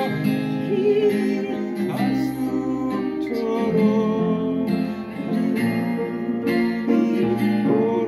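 Upright piano played along with acoustic guitar and a singing voice from a recording on a phone, making a slow ballad together.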